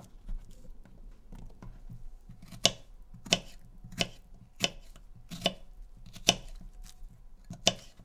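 Kitchen knife slicing strawberries on a wooden cutting board. Each cut ends in a sharp tap of the blade on the board: about seven of them, most of a second apart, starting roughly two and a half seconds in.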